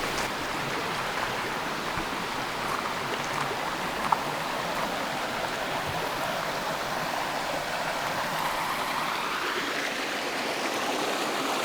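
Jean's Run, a mountain stream, rushing steadily, with a single faint tick about four seconds in.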